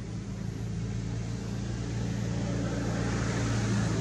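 Steady low engine hum of a motor running, slowly getting louder.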